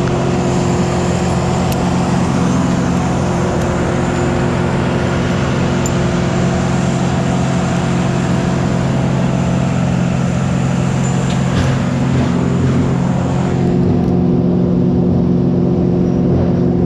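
A heavy machine's engine running steadily at one speed, a constant low hum, with a few faint clicks about twelve seconds in.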